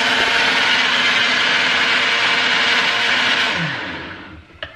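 Countertop blender running steadily while blending a fruit milkshake, then switched off about three and a half seconds in, its motor winding down with a falling hum. A single click near the end.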